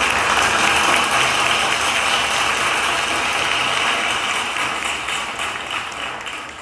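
Audience applauding, a dense steady clapping that thins out and fades near the end.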